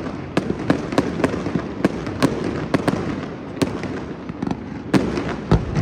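Fireworks going off in quick, irregular succession: many sharp bangs with crackling between them.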